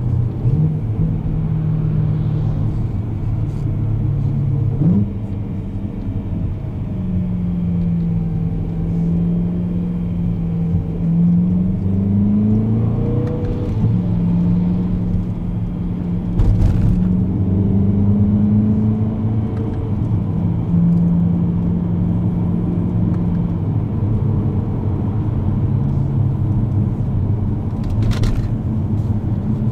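BMW E92 M3's 4.0-litre V8 with a Tubi Rumore aftermarket exhaust, heard from inside the cabin while driving. The engine note holds steady, then jumps and glides in pitch a few times as the car moves between gears. There are a couple of brief knocks.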